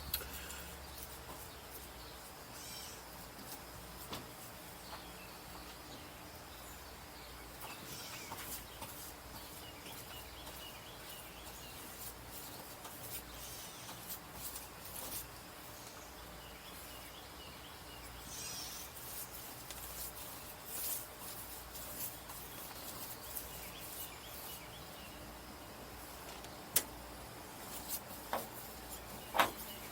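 Quiet outdoor ambience with birds chirping faintly now and then, and a few sharp clicks near the end.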